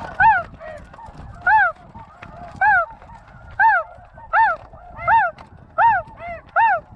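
Snow goose calling: eight loud, short honks, each rising and falling in pitch, at about one a second and coming a little quicker after the first few. Fainter goose chatter runs underneath.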